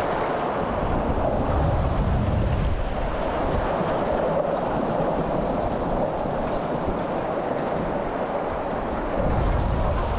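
Steady rushing noise of a motorboat on open water, wind and water against the hull, with a low rumble that eases off in the middle and comes back near the end.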